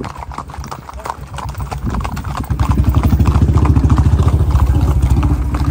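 Horses' hooves clip-clopping on a road. About two and a half seconds in, a close vehicle engine's low, rapid, even pulsing rises and becomes the loudest sound.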